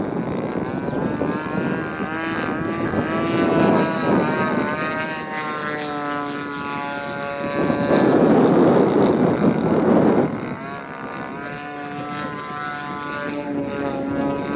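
30cc two-stroke petrol engine of a Seagull Edge 540 radio-controlled model plane in flight, its pitch gliding up and down as it manoeuvres. About halfway through, a loud rushing noise swells for a couple of seconds.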